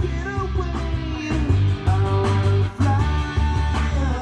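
Guitar-led rock music played through a Teac AG-550 stereo receiver and its speakers.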